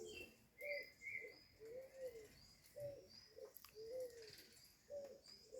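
Birds calling: short, low cooing notes repeated about once or twice a second, mixed with faint higher chirps from other small birds.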